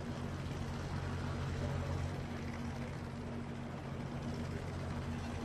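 Steady low drone of a helicopter's engine and rotor, a few constant low tones over a haze of noise.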